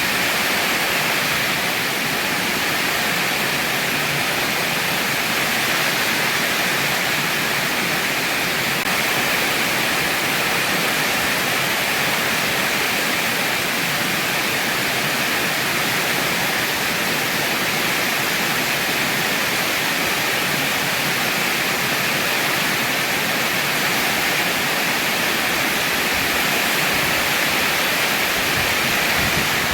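Heavy rain falling steadily: a dense, even hiss with no separate drops or thunder standing out.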